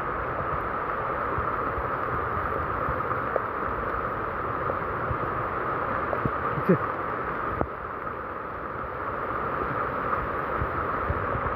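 Heavy rain on tropical forest together with a fast-flowing river, making one continuous hiss. A few faint drips can be heard, and there is a short falling squeak about two-thirds of the way through.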